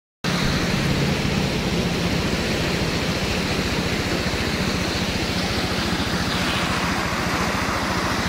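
A vehicle engine running steadily under a constant hiss of road and wind noise, with a fast, even low throb. It starts abruptly after a split second of silence at the beginning.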